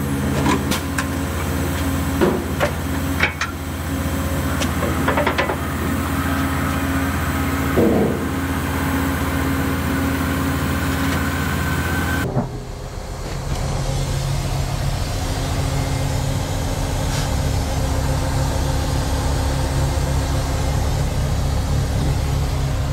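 Diesel engines of heavy equipment running steadily during loading, with several short knocks and clanks in the first half. About twelve seconds in, the sound cuts abruptly to another diesel engine running.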